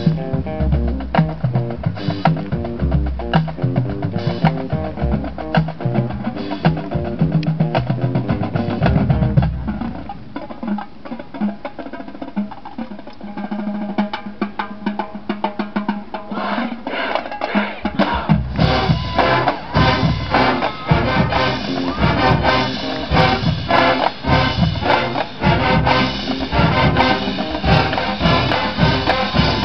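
High school marching band playing, with the drumline's snares and bass drums driving the beat. The band drops to a softer passage over a held low note, then the full band and drums come back in loud about two-thirds of the way through.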